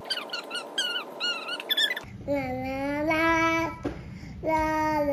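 Young child singing wordlessly in long held notes, two drawn-out phrases, after about two seconds of quicker, higher vocal sounds.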